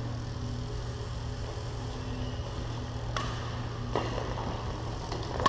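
Badminton rackets striking a shuttlecock during a doubles rally: two sharp cracks, about three and four seconds in, over a steady low hum.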